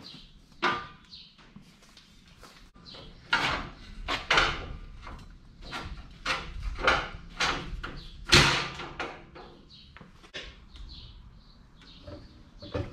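Irregular clunks and knocks of steel coil springs being worked into a Nissan Patrol's front spring seats, metal striking metal, the loudest knock about eight seconds in.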